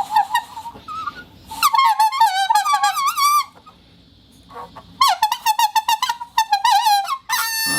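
Rubber plate whistle blown, giving a squeaky, warbling tone near 1 kHz whose pitch wobbles quickly. It comes as short chirps at first, then two longer bursts with a pause between.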